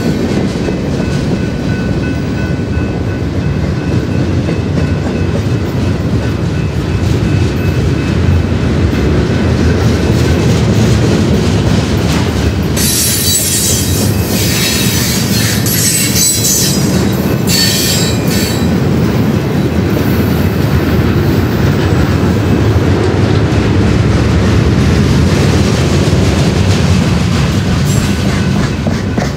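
BNSF freight train rolling past with a steady rumble of wheels on rail and clickety-clack. Faint thin squeals sound in the first several seconds, and a louder stretch of harsh high-pitched screeching runs from about halfway through for several seconds.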